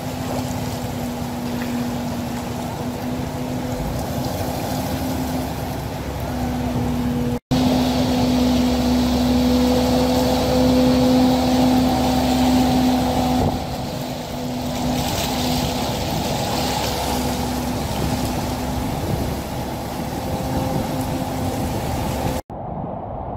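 Traffic driving through deep floodwater: a steady engine hum over a rushing wash of churned water. The sound grows louder and heavier for several seconds after about seven seconds, and it breaks off for an instant twice.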